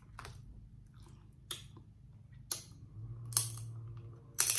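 Close-up eating of snow crab meat: a few sharp, crisp mouth clicks and smacks about a second apart.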